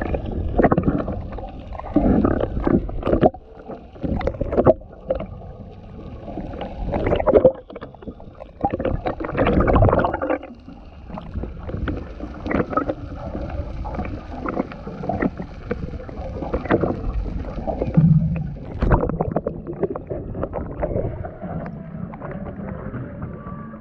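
Muffled water sound from a submerged camera, heard through its waterproof housing: irregular rushing and sloshing with knocks and thuds.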